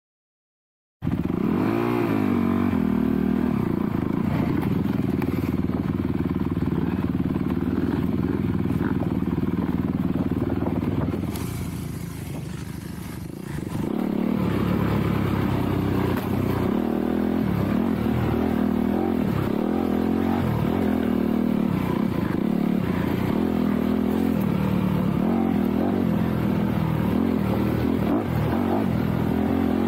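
Dirt bike engine running on the throttle, revs rising and falling as it rides along. It starts about a second in, and around twelve seconds in it drops off for about two seconds before picking up again.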